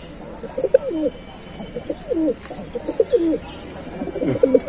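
Domestic pigeons cooing: a run of short coos, each dipping in pitch, coming in several groups.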